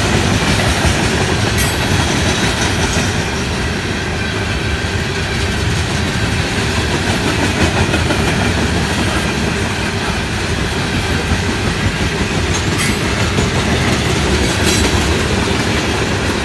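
Loaded coal train rolling past, its hopper cars making a steady rumble and wheel noise with a few sharp clacks over the rail joints.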